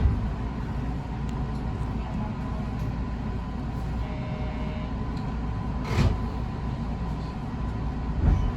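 A JR West 221 series electric train heard from inside the car while running, a steady low rumble of wheels on rail. Sharp knocks come at the start, about six seconds in and near the end as the wheels pass over rail joints or points.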